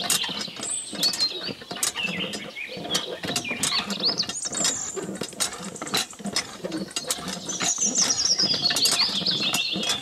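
Miniature hand pump being worked by hand: its metal-rod handle and wire linkage click and rattle with each stroke, in a fast, irregular run of clicks.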